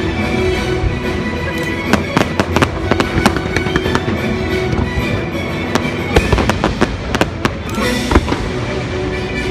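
Fireworks firing from barges on the water in rapid volleys of sharp bangs and crackle, the loudest bangs about two seconds in and again near the end, over the show's orchestral score playing on loudspeakers.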